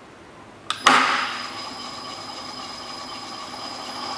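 Chevalier FM-2S vertical mill's 3 HP inverter-driven variable-speed head starting up with a click and a loud clunk about a second in, then the spindle running steadily with a high whine.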